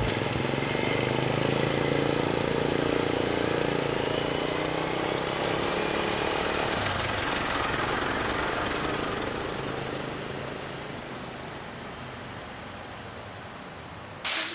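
A vehicle's engine running with road noise, a steady low hum under a broad rush that gradually dies away in the second half.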